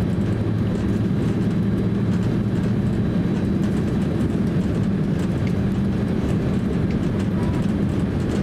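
Cabin noise of a Boeing 767-300 rolling off the runway after landing: a steady low rumble from the engines and the wheels on the pavement.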